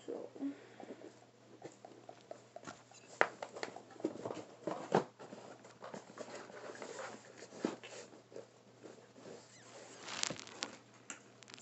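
Cardboard box and small speakers being handled and shifted about by hand: irregular taps, knocks and rustles, with a few sharper knocks spread through, over a faint steady low hum.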